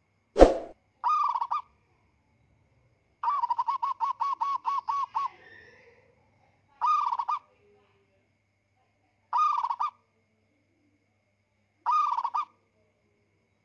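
Turkey gobbling: short warbling calls repeated about every two and a half seconds, one a longer rapid trill of about ten pulses, with dead silence between them as in a looped sound clip. A single sharp hit just after the start is the loudest sound.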